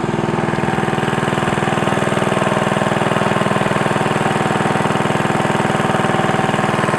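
A small boat's engine running steadily under way, a fast, even pulsing drone that holds constant.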